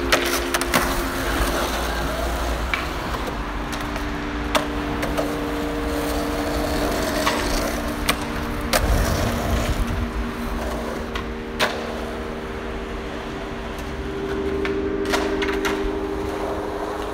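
Skateboard wheels rolling on concrete, with several sharp clacks of the board popping and striking the ledge, over held synth chords of background music.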